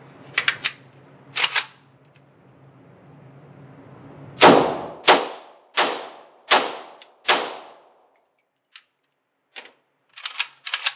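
Arsenal SLR-107fr semi-automatic AK rifle in 7.62x39 firing five shots in steady succession, about two-thirds of a second apart, each with a ringing tail, and cycling without a malfunction. Sharp clicks come before the shots and again near the end.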